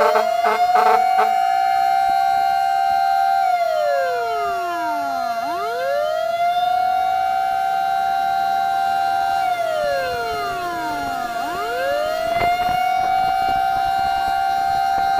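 Fire truck siren wailing: the pitch rises quickly, holds, then slides slowly down, in cycles of about six seconds, over a second steady tone. A rapid pulsing sound runs through the first second.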